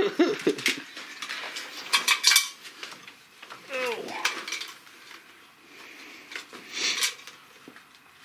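Heavy metal tow chain clinking and rattling in irregular bursts as it is handled and hooked up.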